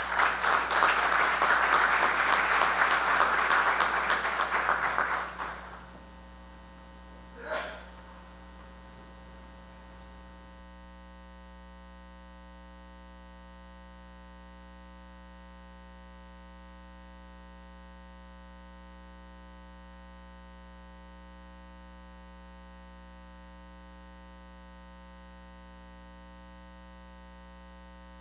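An audience applauding, which dies away about five to six seconds in. A short sound follows a couple of seconds later, then only a steady electrical mains hum.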